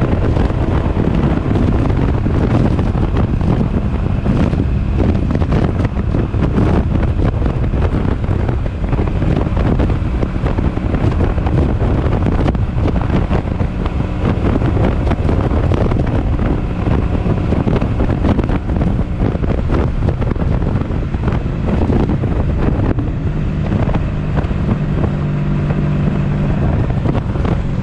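Heavy wind buffeting the microphone over a 1983 Honda Sabre 750's V4 engine running at highway speed. The engine's note comes through more steadily near the end.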